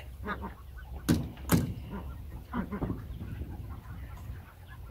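Poultry calling in short clucks and quacks. Two sharp knocks come about a second in.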